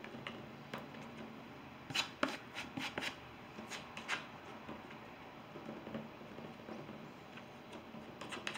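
Palette knife dabbing and scraping oil paint onto a stretched canvas: soft irregular taps and short scrapes, busiest from about two to four seconds in.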